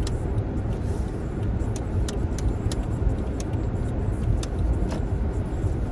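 Car driving slowly, heard inside the cabin: a steady low rumble of engine and tyres, with scattered light clicks.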